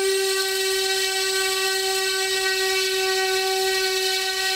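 A 2212 brushless motor spinning a propeller on a thrust test stand at about 11,500 rpm, powered by a 3S 18650 Li-ion pack. It makes a steady, even-pitched whine.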